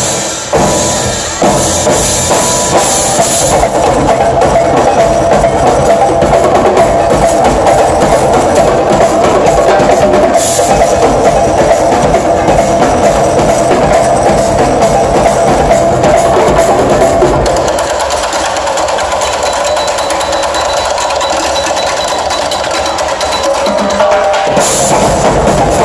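Live percussion ensemble playing a fast, dense drum groove on drum kits, timbales, barrel drums and a goblet hand drum. About two-thirds of the way through the deep drums drop out for a few seconds, then come back in near the end.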